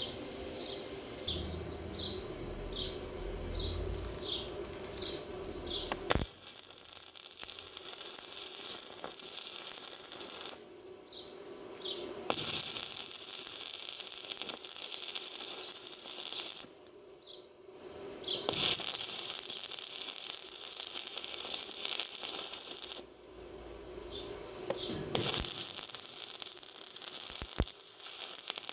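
Stick-welding arc crackling in runs of about four seconds, broken by short pauses, with faint short chirps in the gaps.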